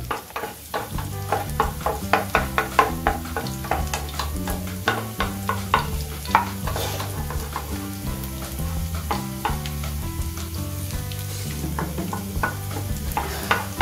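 Chopped garlic, ginger and green chillies sizzling in hot oil in a non-stick frying pan. They are fried toward golden brown while a wooden spatula stirs and scrapes through them with many short scrapes and taps. Background music runs underneath.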